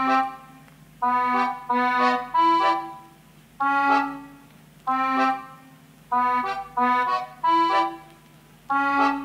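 Background music: short melodic phrases, each starting sharply and fading, about once a second over a steady low drone.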